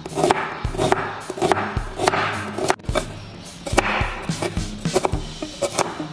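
Knife strokes on a wooden cutting board as shallots are sliced and then chopped with a cleaver, about two sharp strikes a second, over background music.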